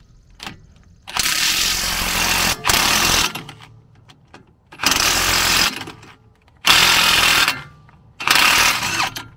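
Cordless Ridgid impact wrench hammering on 18 mm strut bolts in about five bursts of a second or so, with short pauses between. The bolts were fastened with threadlocker and are hard to break loose.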